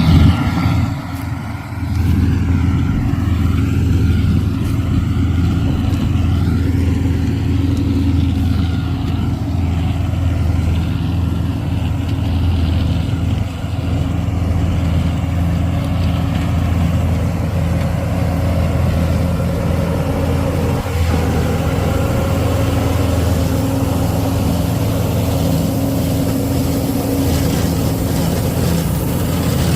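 Engine of a farm vehicle spreading manure, running steadily with a low, even drone.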